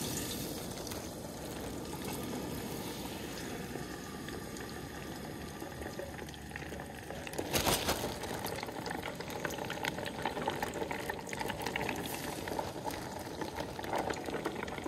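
Pot of hot peanut oil on a propane camp stove, hissing and bubbling steadily. From about halfway, a burst and denser crackling as coated fish pieces start frying in the oil.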